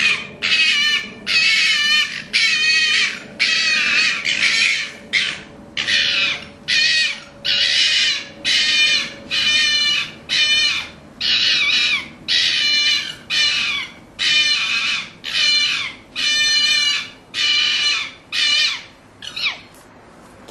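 A fox calling over and over: a harsh, raspy cry about once a second, each about half a second long. The series ends with a shorter call that falls in pitch.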